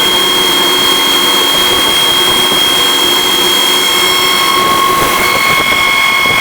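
Large farm machine's engine running steadily, with a constant high-pitched whine over the engine noise.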